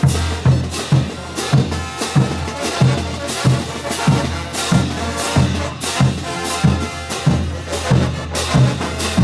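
Bolivian brass band playing: a bass drum and cymbal beat about twice a second under held horn lines.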